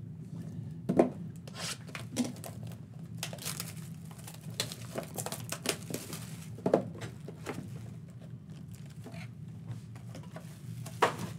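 Clear plastic shrink-wrap being torn off a trading-card box and crumpled in the hands, crinkling and crackling, with three sharper knocks as the box is handled.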